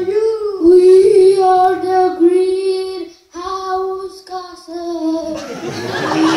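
Children's voices singing long held notes together, with a brief break about three seconds in; near the end a rushing hiss comes in under a held note.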